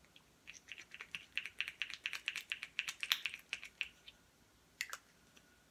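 A fast, even run of small plastic clicks, about nine a second for some three seconds, from a small sunscreen bottle being worked in the hands, then two more clicks near the end.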